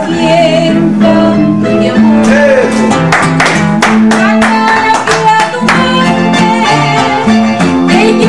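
Live Latin-style music: an acoustic guitar strummed in a steady rhythm with a Casio CTK electronic keyboard playing a stepping bass line and held melody notes.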